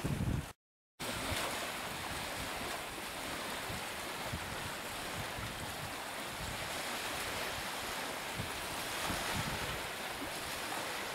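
Strong wind and the wash of choppy waves make a steady rushing noise, with gusts buffeting the microphone in low rumbles. The sound drops out completely for a moment just over half a second in.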